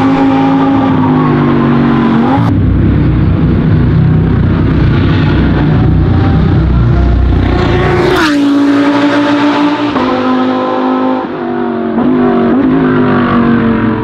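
Audi R8 LMS race car's 5.2-litre V10 running hard on track. Its note falls away to a gear change about two and a half seconds in, then a deep rumble follows. About eight seconds in the car passes close by, and its engine note then steps through gear changes as it pulls away.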